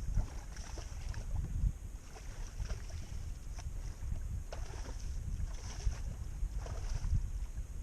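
Wind rumbling on the microphone over a kayak on open water, with light water sounds and scattered small knocks and ticks against the hull.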